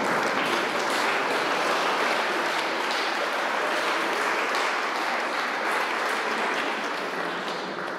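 Congregation applauding: a steady wash of many hands clapping that eases off slowly toward the end.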